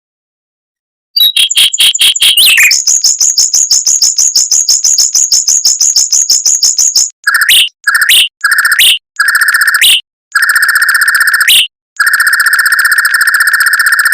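Mockingbird singing in rapid rolling trills. After about a second, a long run of fast repeated high notes comes at roughly eight a second. From about halfway, it breaks into a series of short, fast-pulsed trills separated by brief gaps, the later trills lasting longer.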